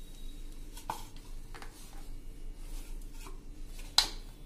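Hands kneading samosa dough in a ceramic bowl: soft pressing and rubbing, with a few light clicks and knocks against the bowl, the sharpest near the end.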